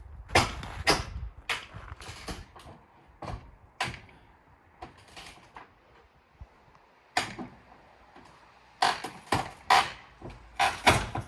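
A string of irregular knocks and scrapes with creaking, sharp and uneven, bunched at the start and again near the end with a quieter stretch in the middle.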